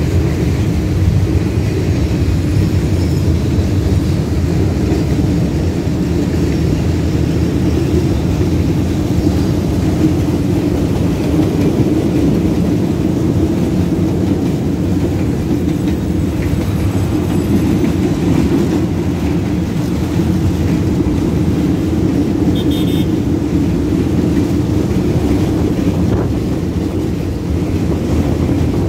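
Long freight train passing, a steady low rumble.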